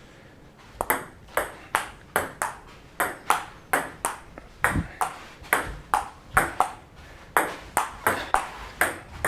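Table tennis rally: the ball clicking on paddles and the table in quick alternation, about three hits a second, starting about a second in.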